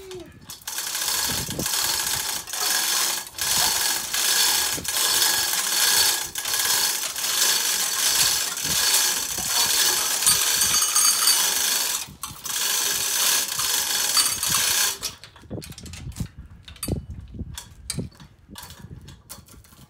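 Hand-operated chain hoist clattering and ratcheting as its hand chain is pulled hand over hand, lifting an engine clear of a car. It breaks off briefly about twelve seconds in and stops about three seconds later, leaving only light chain clinks.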